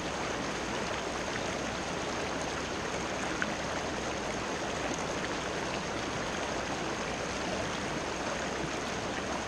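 River water running over rocks: a steady, even rushing hiss.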